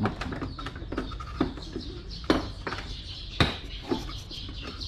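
Hand tools and metal parts clinking and knocking during work on a scooter's rear shock absorber mounting bolts: a handful of sharp, irregular hits, the loudest about two and a half and three and a half seconds in.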